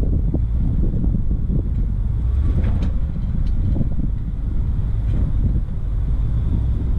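Low, steady rumble of a 4x4's engine and drivetrain crawling slowly over rock ledges, with low, uneven buffeting from wind on the microphone.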